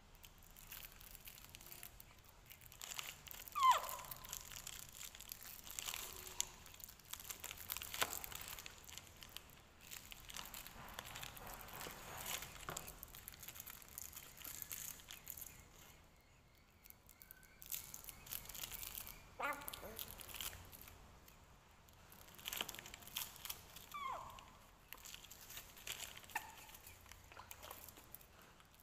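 Clear plastic bag crinkling and small milk cartons rustling as they are handled, with scattered light clicks and taps. Two short squeaky calls that drop in pitch stand out, one a few seconds in and one late on.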